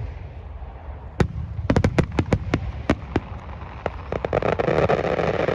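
Fireworks going off: a sharp bang about a second in, then a quick run of cracks and pops, with a denser, steadier rushing noise rising near the end.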